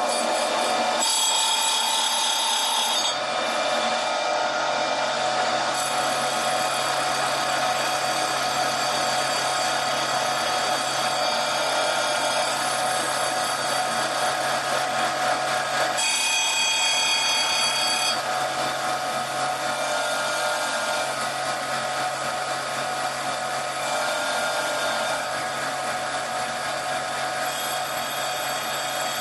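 Crankshaft grinding machine running while its grinding wheel takes a light cut on a ZMZ-402 crankshaft, a steady machine hum and grinding noise. A higher, brighter ring comes in three short spells: about a second in, about halfway, and near the end.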